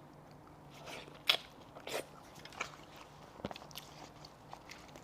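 Biting and chewing on a cooked goat head, with a series of sharp crunching clicks, the loudest about a second in.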